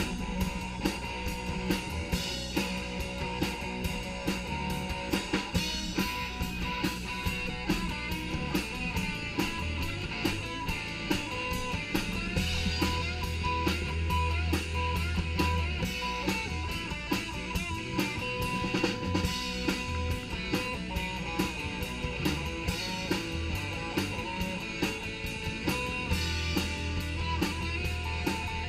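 Live rock band playing an instrumental passage with no singing: drum kit keeping a steady beat, with bass and electric guitar.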